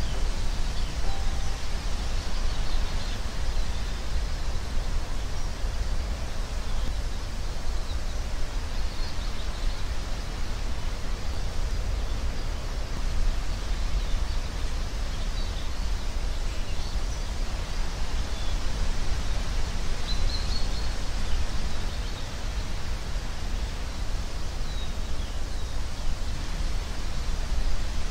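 Steady outdoor background noise picked up by a nest camera's microphone: a low rumble under an even hiss, with a few faint, short high chirps scattered through it.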